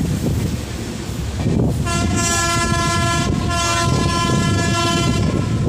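Train horn sounding in two long steady blasts, the first starting about two seconds in and the second following after a brief break, over the steady running noise of a moving train.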